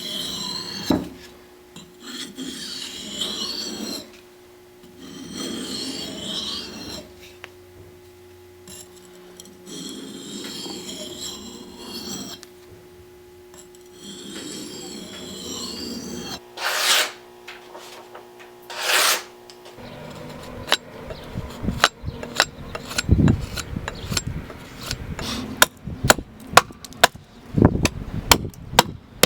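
A file or rasp drawn in slow strokes of about two seconds each, with a faint squeal on each stroke, then two short, louder strokes. For the last third, a run of sharp, irregular taps.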